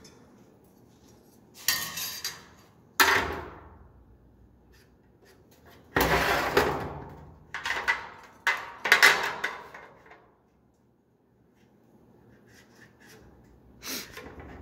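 Metal hand tools and the door frame knocking and clattering against a steel workbench as they are handled and set down: six or so sharp knocks in the first ten seconds, the longest a rattling clatter about six seconds in, then a few faint clicks near the end.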